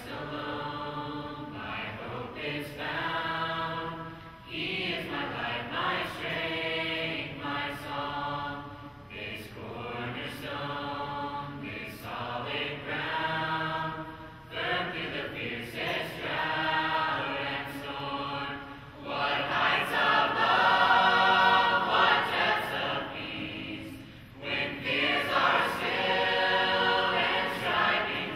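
Large mixed choir of teenage voices singing a hymn, phrase after phrase with short breaths between, growing loudest about two-thirds of the way through.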